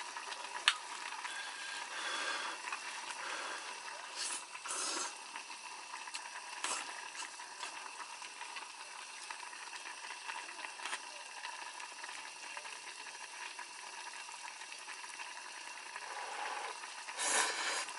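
A pot of motsu hotpot with pasta simmering and bubbling steadily, with a few short louder noises of eating or utensils, the loudest near the end.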